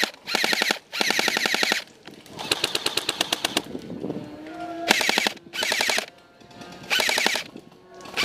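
Electric airsoft rifle firing full-auto in about six short bursts, each a rapid string of evenly spaced clicks lasting half a second to a second, with short pauses between.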